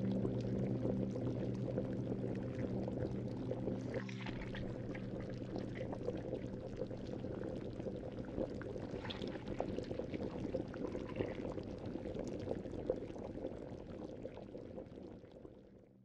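Water sizzling and crackling on a hot glass-ceramic hob, a dense run of tiny pops over a steady low hum of several held tones. It grows gradually quieter and fades out near the end.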